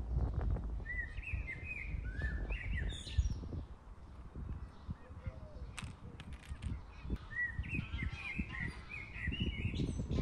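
A songbird singing two phrases of quick chirping notes, the first about a second in and the second about seven seconds in, over a low rumble of wind on the microphone.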